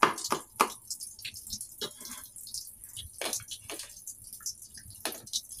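Chef's knife chopping garlic on a wooden cutting board: two or three chops at the start, then a few scattered light knocks and taps.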